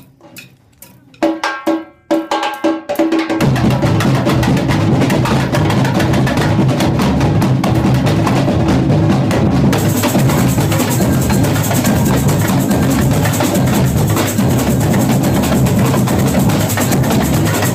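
Samba percussion band (bateria) with surdos, repiniques, tamborim and chocalho. A few sharp drum strokes call it in, and the full ensemble comes in together about three and a half seconds in and plays a steady, loud samba groove. From about ten seconds in the high jingling shaker sound gets thicker.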